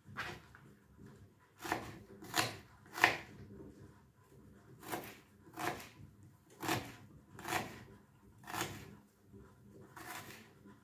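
Kitchen knife chopping an onion on a cutting board: about ten separate cuts at an uneven pace, roughly one a second, each knife stroke striking the board.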